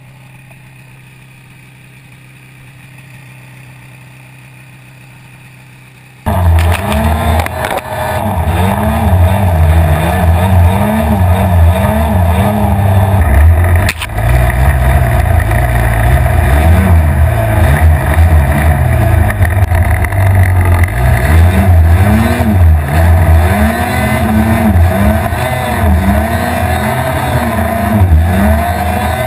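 Ski-Doo snowmobile engine. It hums quietly and steadily at first, then about six seconds in turns abruptly loud and revs up and down repeatedly under throttle as the sled ploughs through deep powder.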